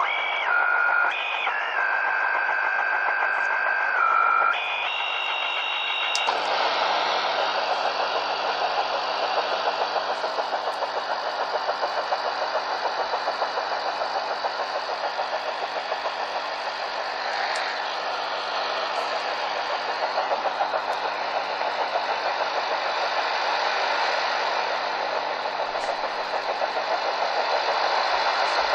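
Shortwave radio receiver audio. For about the first six seconds, steady whistling tones change pitch in steps. Then a rapid, even tapping pulse over hiss runs on: an unidentified pulsed signal on 9195 kHz, which the listener likens to HAARP or the Russian Woodpecker over-the-horizon radar.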